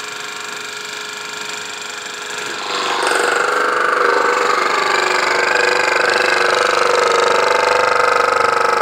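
Keiser KT17999 crack-injection pump running steadily as it circulates oil, the first round that wets its seals before the chemical goes in. It grows louder and fuller about three seconds in and then runs on evenly.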